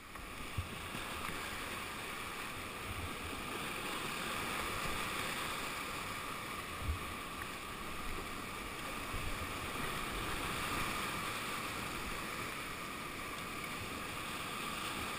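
Steady rush of flowing river water, with a couple of brief low thumps about half a second in and about seven seconds in.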